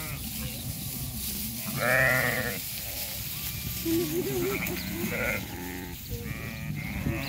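Sheep bleating, several calls one after another, the loudest about two seconds in, over a steady low rumble.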